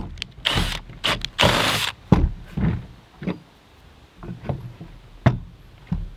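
Cordless drill boring through a cedar slab in a few short bursts, then a series of sharp knocks and taps as a metal pipe is worked into the freshly drilled hole.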